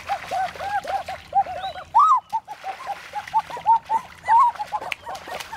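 A dense chorus of many animals calling at once: short, rapidly repeated chirps that rise and fall in pitch and overlap one another. There is a brief break a little after two seconds.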